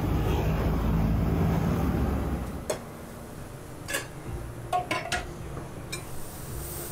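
A steady low rumble for about the first two and a half seconds. Then, at a jianbing crepe griddle, about six sharp metal clicks and taps of cooking utensils as batter is ladled out and spread.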